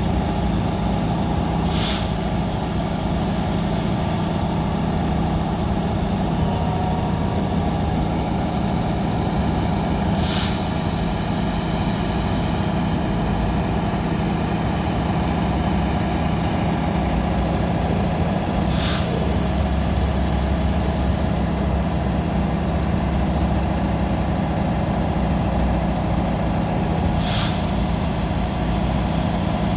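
Freightliner M2 concrete pump truck's diesel engine running steadily, with a short sharp hiss of air four times, about every eight and a half seconds.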